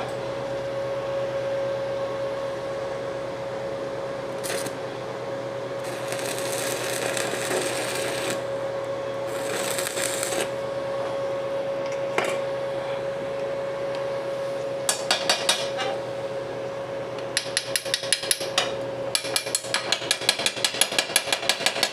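Stick-welding arc of a TOTAL 130 A inverter MMA welder crackling and hissing as the electrode welds thin sheet steel for about the first dozen seconds, over a steady hum. In the last few seconds a wire brush and chipping tool scrape and strike the fresh weld in quick repeated strokes, cleaning off the slag.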